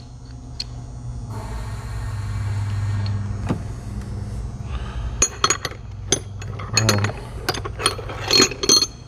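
Metal tools clinking and clicking as impact sockets and a swivel socket are handled and fitted together, a quick run of sharp clinks in the second half. A steady low hum runs underneath.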